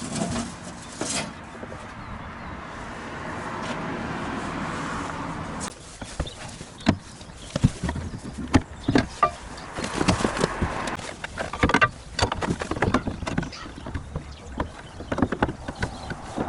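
Workshop sounds of metal parts being worked on: a steady rushing noise for about four seconds, then a long run of sharp knocks, clicks and rattles.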